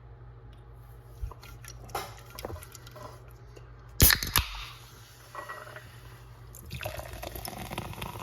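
A few light handling clicks, then a Starry Zero Sugar soda opened with a loud sharp snap and hiss about four seconds in. Near the end the soda is poured, fizzing and crackling.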